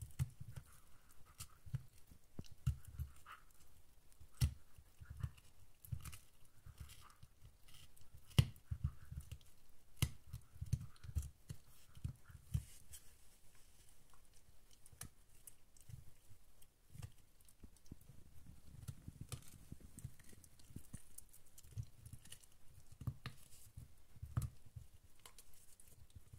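Terriers gnawing on long, hard chew bones: irregular clicks and dull knocks of teeth working the chew, coming in uneven runs.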